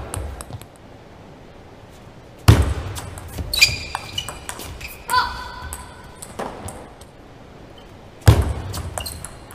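Table tennis rally: the ball clicks off the bats and the table. There are two loud thuds, about two and a half seconds in and near the end, and a few short ringing tones in between.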